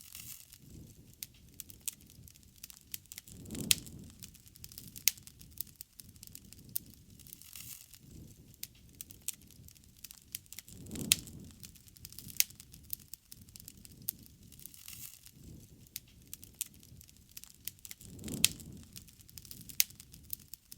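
Wood campfire burning, with frequent sharp crackles and pops over a low, steady rush of flame. A louder low swell comes three times, about seven seconds apart.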